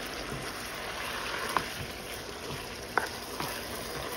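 Chicken pieces and ginger-garlic paste sizzling steadily in hot oil in a nonstick pan while being stirred with a spatula, which knocks against the pan in a few sharp ticks, about one and a half and three seconds in.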